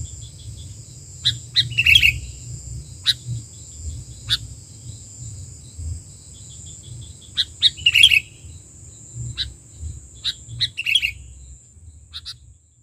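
Sooty-headed bulbuls calling: sharp single chirps at irregular intervals, with short bubbly phrases about two seconds in, at about eight seconds and near eleven seconds, over a steady high-pitched whine and a low rumble.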